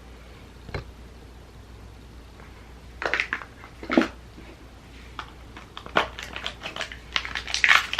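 Scattered small clicks, taps and rustles of hands handling a cardboard advent-calendar drawer and a wrapped enamel pin, growing busier near the end.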